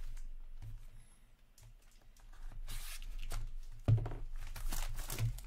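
A box cutter slitting and tearing the plastic shrink-wrap on a box of trading cards: scratchy cutting and tearing that starts about halfway through, with a sharp click a little before the end.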